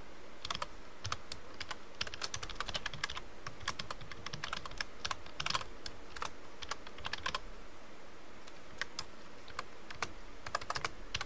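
Computer keyboard typing in irregular runs of keystrokes, thinning out for a couple of seconds before a last quick run near the end.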